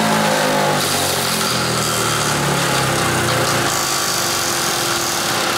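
Turbocharged 125cc single-cylinder go-kart engine running hard, its pitch falling over the first second as revs drop, then turning into a rougher, noisier sound with a faint steady whine in the second half.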